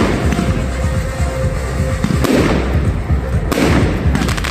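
Fireworks display going off, with sharp bangs and crackle about two seconds in and again past three and a half seconds, over music playing throughout.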